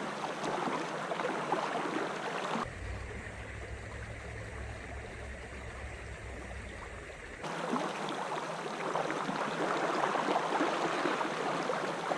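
River current rushing and splashing over shallow rapids. For a few seconds in the middle the water turns duller and a low rumble sits under it.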